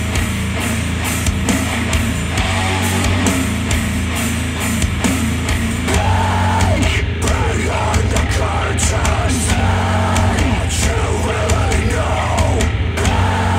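Rock music played back through Micca RB42 bookshelf speakers driven by a Yamaha A-S301 integrated amplifier, with a steady bass line and a vocal coming in about six seconds in.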